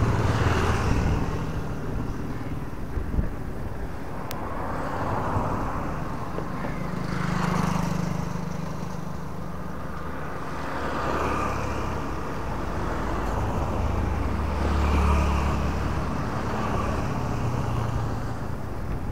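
Road traffic passing close by: cars and motorcycles going by one after another, each pass swelling and fading over a steady low engine hum.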